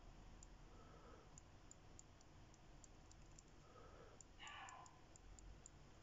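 Near silence with faint, irregular little clicks, a few a second, from the crown of a TAG Heuer Aquaracer GMT being turned to set the hands. There is a brief soft rustle about four and a half seconds in.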